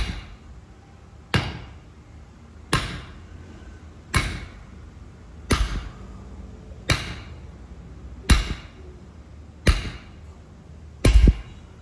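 Hammer blows on metal, struck at an even pace of about one every second and a half, nine in all. Each blow rings briefly, and a couple of them land as a quick double hit.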